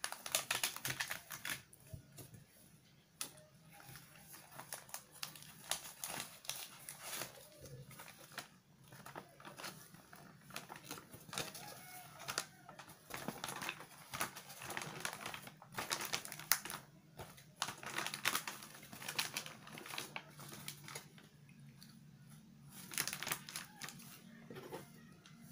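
Paper food wrapping crinkling and rustling in repeated bursts as a wrapped portion of nasi Padang is unfolded by hand.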